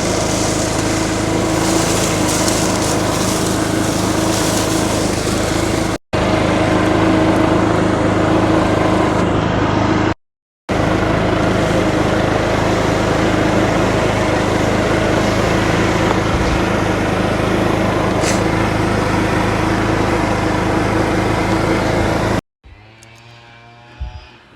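Small gasoline engine of lawn equipment running steadily. It is broken by brief cuts about six and ten seconds in, and near the end it drops away to a much quieter background.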